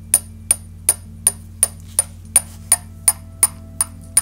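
A metal teaspoon tapping the bottom of a ceramic mug of freshly stirred instant coffee: about three evenly spaced taps a second, each a short ping, with a faint ringing tone that comes in about halfway through. The note of the liquid is held low by air bubbles released as the coffee powder dissolves, which is the hot chocolate effect.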